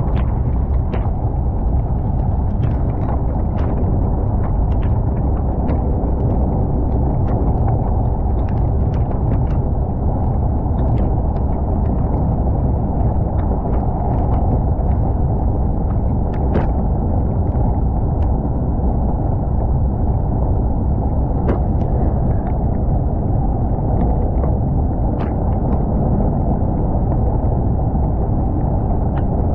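Vehicle driving on an unpaved dirt road: a loud, steady low rumble of tyres and running gear, with scattered sharp clicks throughout.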